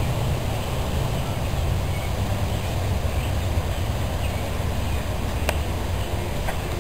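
Steady low outdoor rumble with a few faint high chirps, and one sharp click about five and a half seconds in.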